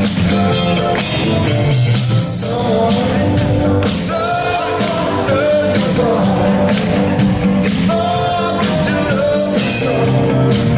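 Live soft-rock band playing a song in concert: drums, bass and keyboards or guitars, with a sung melody over them.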